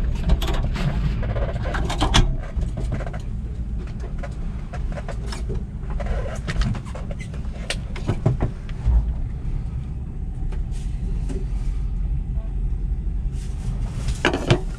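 Steady low rumble of the fishing boat's engine, with several sharp clinks and knocks as a glass pot lid is lifted and set back on the rim of a steel stockpot.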